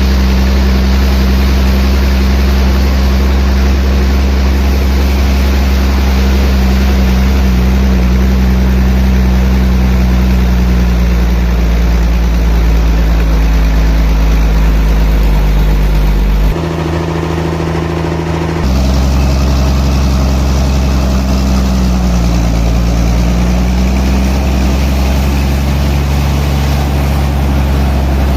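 Heavy sawmill machinery running, a steady low engine drone with a slight rise and fall in pitch. The sound changes abruptly for about two seconds past the middle, then returns.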